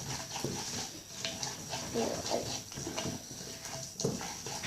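Homemade glue slime being stirred and worked, giving irregular sticky squelches and small clicks.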